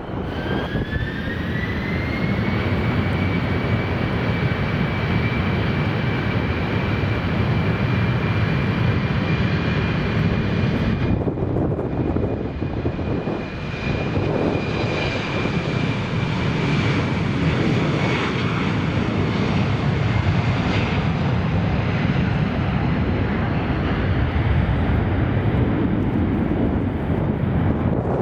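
Airliner engines at high power: a whine rises over the first two seconds and then holds steady, over a loud, even rumble. The whine fades out a little after two-thirds of the way through while the rumble carries on.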